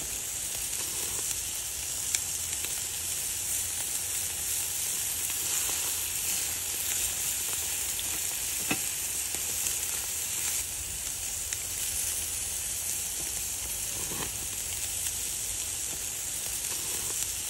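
Pork neck sizzling on the grate of a portable gas grill, a steady hiss. A few light clicks sound over it.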